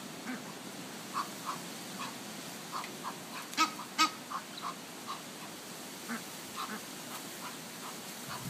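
Egyptian geese and their goslings giving short, scattered peeping and quacking calls while feeding, with two louder, sharp calls about three and a half and four seconds in.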